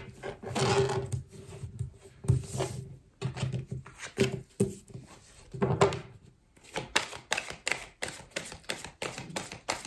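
A deck of oracle cards shuffled by hand, with a fast run of crisp card-edge clicks in the second half and cards laid down on the table. In the first six seconds a low droning sound comes and goes about every two seconds.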